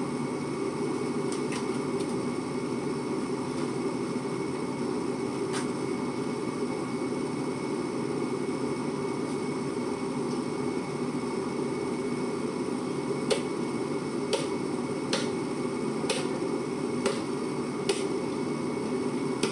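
A knife cutting into a large tuna's head behind the gills: about a second in and again at five seconds, then about once a second through the second half, it gives sharp clicks as the blade works through bone and cartilage. A steady low machine hum runs underneath throughout.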